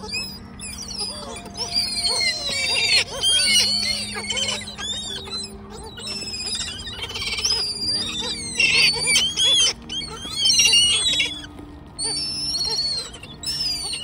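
A flock of gulls calling, many short high arched cries overlapping in bunches, over background music with long held notes.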